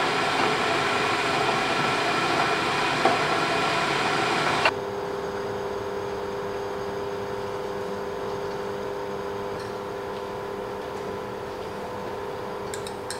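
Electric kettle running at the boil, a loud steady rush that cuts off suddenly about five seconds in as it switches off. A quieter steady hum goes on afterwards.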